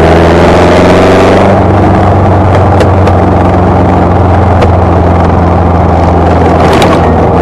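Birkin 7 (Super Seven-type) engine running at a steady cruise with little change in pitch, heard from on board the car. Wind rushes over the car, loudest in the first second or so, and a few short knocks come through.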